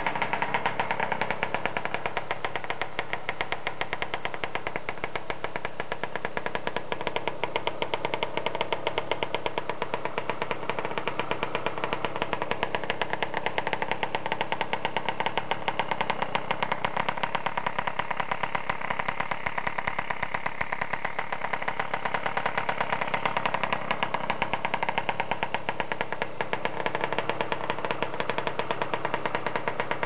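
Two-stroke engine of a tuned Peugeot Zenith scooter running steadily through its Cristofolini expansion exhaust, a fast, even exhaust beat at a constant speed.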